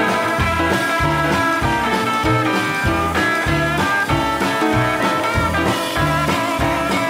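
Live band playing an instrumental break with no singing: electric guitar, piano, double bass and drums, the bass walking in even low notes under the guitar and piano.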